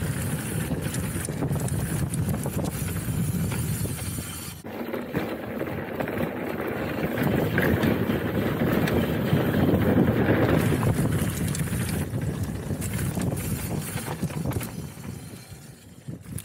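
Wind rushing over the camera microphone on a fast mountain-bike descent, with the tyres and the Trek Roscoe 8 hardtail rattling over rough trail. It dies down near the end.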